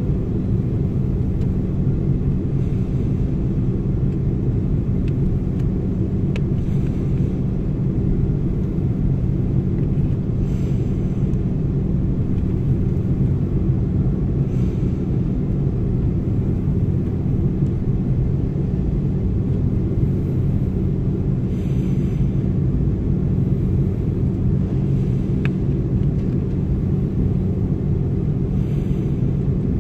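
Steady low rumble inside the cabin of an Airbus A330-300 taxiing: engines at taxi power and the airframe rolling on the taxiway.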